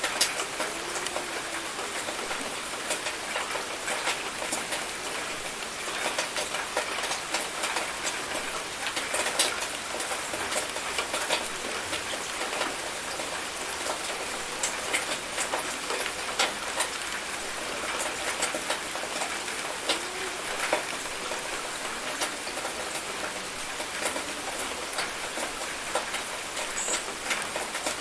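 Steady rain falling: an even hiss with many sharp drop ticks spattering on a surface.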